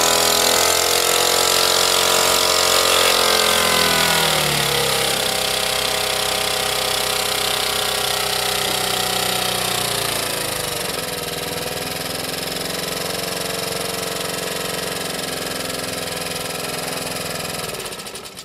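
Small Honda E40 portable generator engine running, its pitch dropping in two steps as it slows. It then runs down and stops near the end.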